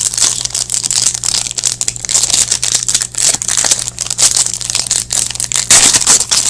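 Crinkling and tearing of a hockey card pack wrapper being handled and ripped open. It is a dense, continuous crackle that grows louder near the end.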